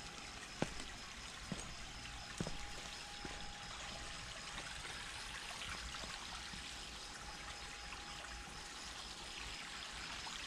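Water running steadily into a pool as it fills, a continuous pouring and trickling. A few light clicks in the first couple of seconds.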